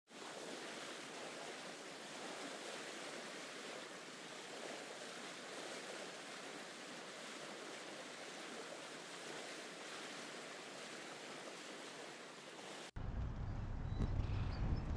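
Steady rushing wash of sea waves and surf. About two seconds before the end it cuts off abruptly and music with a strong bass comes in.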